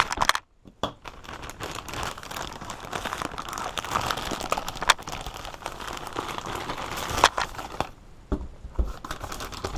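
A mailing bag being cut open with a small knife and handled, crinkling and rustling with many sharp crackles, easing off near the end.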